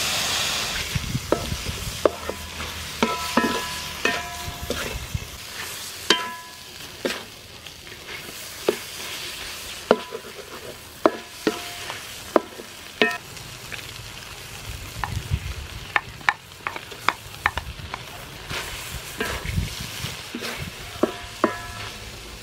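Shrimp and egg stir-frying in a hot metal wok, a steady sizzle under repeated scrapes and knocks of the spatula against the wok, several of which make the wok ring briefly. At the start a louder hiss, from fish sauce just poured onto the hot metal, dies away within about half a second.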